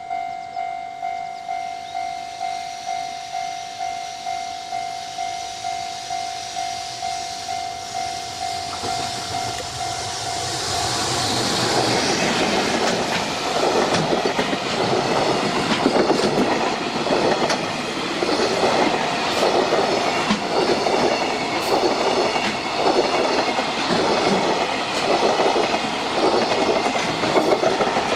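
Level-crossing warning bell ringing with a steady repeated ding, a little under twice a second, as a train approaches. About 11 seconds in a JR Freight train passes at speed and drowns the bell, its wheels clattering rhythmically over the rail joints.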